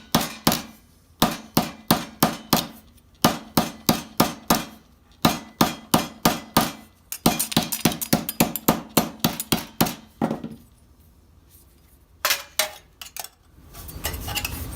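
Hammer striking the edge of a steel armet plate on a wooden stump to flare it out: quick runs of sharp blows, about four a second, broken by short pauses, then two single blows near the end.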